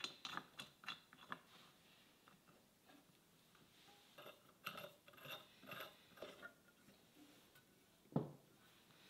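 Faint small metal clicks and light taps as steel hold-down clamps with brass knobs are set on a fixture plate and their knobs screwed down by hand. The clicks come in clusters, with one heavier knock about eight seconds in.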